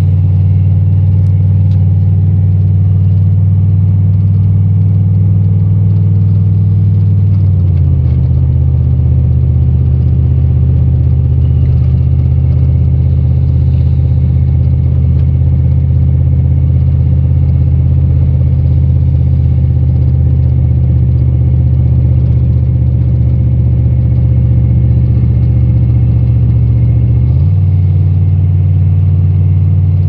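Steady drone of a vehicle's engine and tyres heard from inside the cab while driving on a slushy highway. The drone drops in pitch about eight seconds in and rises back near the end.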